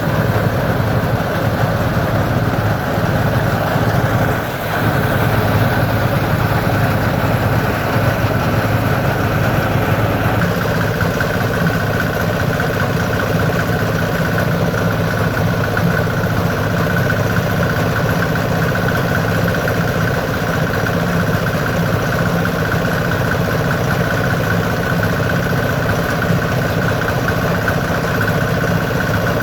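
An engine running steadily with an even drone, dipping briefly about four and a half seconds in.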